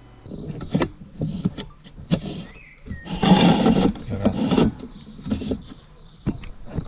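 Plastic clicks and scraping as a Nissan Qashqai's tailgate handle trim is worked free of the boot lid, with a louder, noisy stretch of under a second a little past three seconds in.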